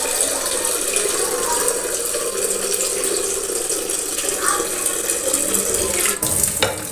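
Tap water running steadily into a vessel, stopping about six seconds in with a couple of knocks.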